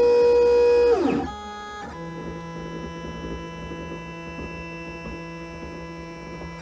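Shapeoko Pro CNC router's stepper motors whining as the gantry jogs. A loud whine holds a steady pitch, then glides down about a second in as the move slows. A quieter, lower whine of several steady tones follows and cuts off near the end.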